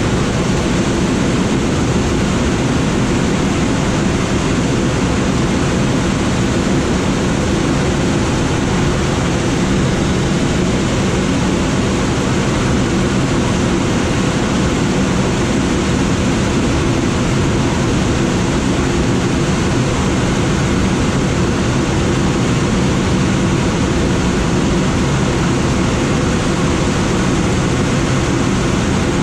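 Steady rush of air over a glider's cockpit in flight, with a low, even engine drone underneath.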